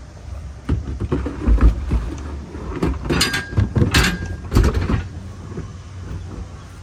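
Irregular clunks, knocks and metallic clinks of tools and gear being handled and loaded, with a heavy thump about a second and a half in and sharp clinks around three and four seconds in; it quietens for the last couple of seconds.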